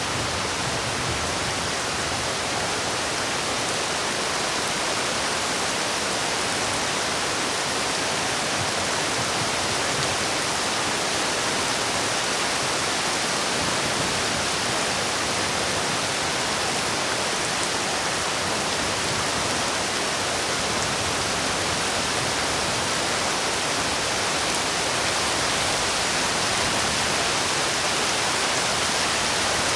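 Steady heavy rain, an even hiss of countless drops with no single drops or thunder standing out.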